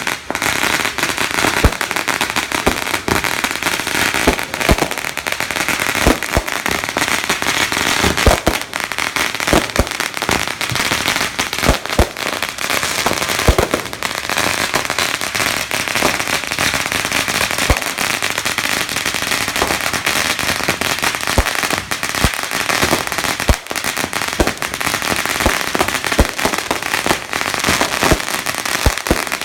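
Fireworks going off without a break: a dense, continuous crackle of pops and bangs, with many sharp reports close together.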